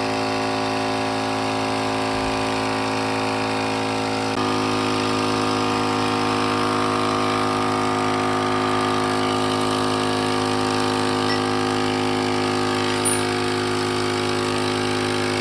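Small 12-volt portable air compressor running steadily as it inflates a riding mower's front tire. Its tone changes abruptly about four seconds in, then it runs on evenly.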